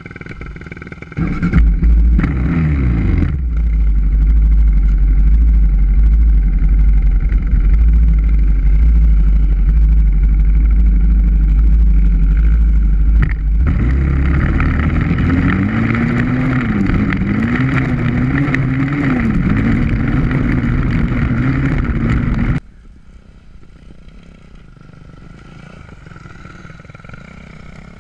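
Dirt bike engines accelerating and riding across sand, the engine note rising and falling repeatedly as the throttle is worked, over a heavy low rumble. About 22 seconds in the sound cuts abruptly to a quieter, steadier engine sound.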